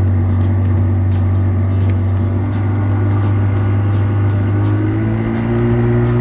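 Boat motor running steadily under way, its pitch rising a little near the end.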